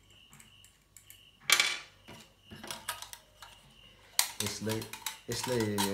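Metal parts of a TV antenna clinking and clattering as they are handled and fitted together, with one loud clatter about a second and a half in and scattered lighter clicks after it. A short voice sound comes near the end.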